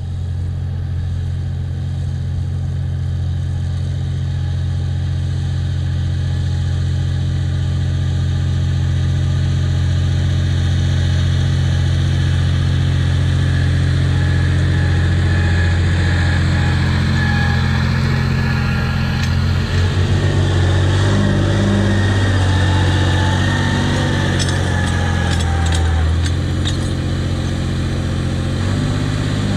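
Massey Ferguson 2640 tractor's six-cylinder diesel engine running steadily under load, growing louder as the tractor comes close towing a land leveller. There are a few short clanks near the end.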